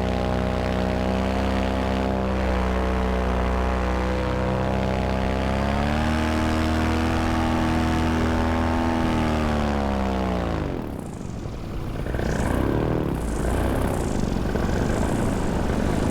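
Moster 185 single-cylinder two-stroke paramotor engine and propeller running steadily in flight, pitch rising a little about six seconds in, then throttled back around ten seconds in so the pitch drops away. After that only a wavering rush of wind remains.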